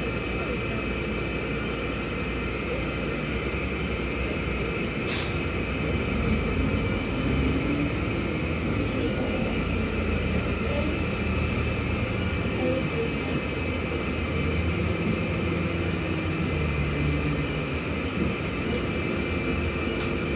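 MAZ 216.066 articulated city bus driving, heard from inside the passenger cabin: its engine and drivetrain run with low tones that shift in pitch over steady road rumble, and there is one sharp click about five seconds in.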